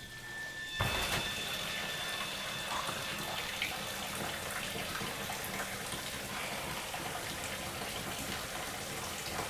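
Running water, a tap or shower, comes on suddenly about a second in and then runs steadily.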